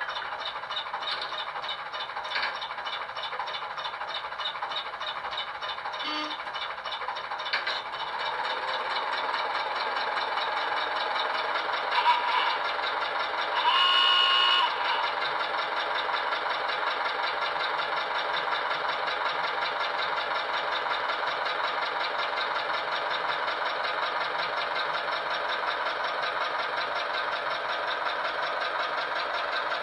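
Sound decoder in an O gauge Ruston 48DS model locomotive playing Ruston diesel shunter engine sound through its small speaker: the engine runs with a steady rattling beat and gets a little louder about a third of the way in. A short horn blast about halfway through is the loudest moment.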